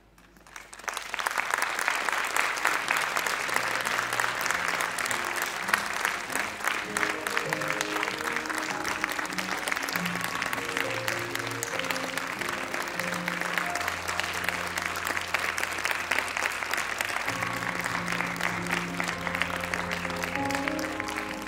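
Audience applauding, beginning about a second in after near silence and going on steadily, with music playing underneath.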